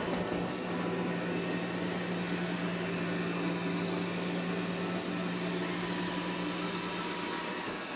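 Xiaomi Mi robot vacuum running over a rug: a steady hum from its suction fan and brushes.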